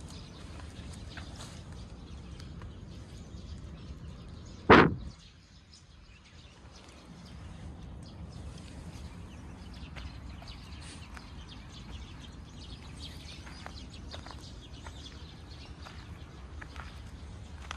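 Outdoor ambience: a steady low rumble with faint chirps and small ticks, broken about five seconds in by one loud, short thump.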